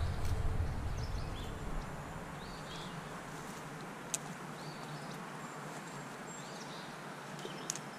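Songbirds chirping in short repeated calls, about one a second, over a steady outdoor hiss. A low rumble of handling fades out in the first two seconds, and two sharp clicks come about four seconds in and near the end.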